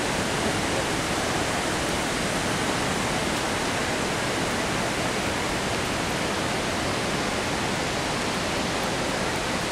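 Steady, even rushing of a large waterfall, Dudhsagar Falls, heard across a forested valley.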